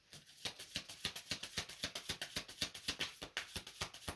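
A deck of tarot cards being shuffled by hand, a rapid patter of card-on-card flicks at about ten a second.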